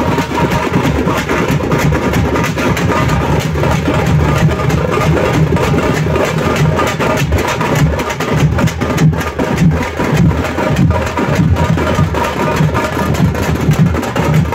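Loud music driven by fast, densely packed drum strikes.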